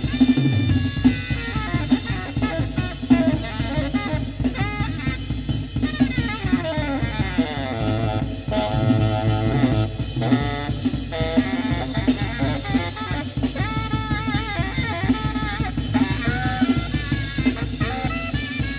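Club jazz music with a busy drum kit, bass and melody lines, including a long falling glide about six seconds in, played through a custom car audio system (Technics tweeters, FaitalPRO midrange and midbass drivers, Luxman amplifiers) and heard inside the car.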